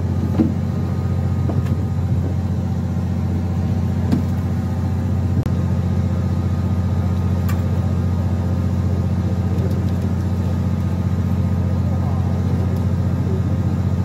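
Fishing boat's engine running steadily, a constant low hum at one level throughout. A few sharp clicks sound over it.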